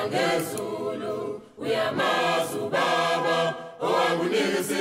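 A choir singing in harmony, in sung phrases broken by short pauses about every two seconds.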